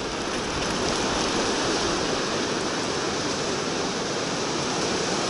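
Steady rushing noise of wind buffeting the microphone on a bicycle ride down a muddy mountain dirt road.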